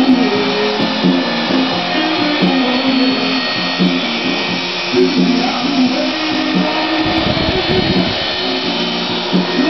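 Background music with a stepping melody, over the steady whine of a small electric RC helicopter's motor and rotors. About seven seconds in, a low rumble lasts about a second.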